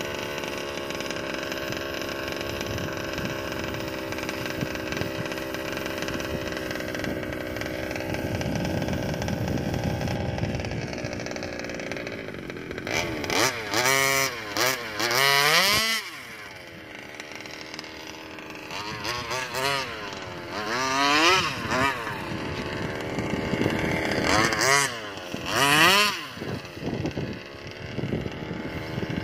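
Two-stroke engine of a Rovan Baja RC buggy being tested after a carburetor overhaul: it runs at a steady pitch for about twelve seconds, then revs up and down in repeated bursts, drops away briefly, and revs in bursts again.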